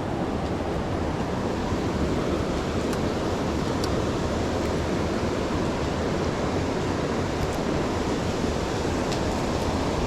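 Creek water rushing steadily over rocks, a constant noise with a few faint ticks on top.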